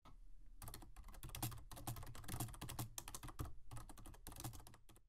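Rapid typing on a computer keyboard: a dense run of key clicks that starts about half a second in and fades out near the end.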